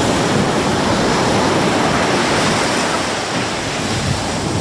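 Ocean surf breaking and washing up a sandy beach: a steady, loud rush of water.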